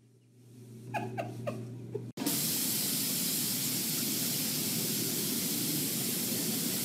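A few short falling whines, then, after a cut about two seconds in, a steady hiss of spraying water that lasts several seconds.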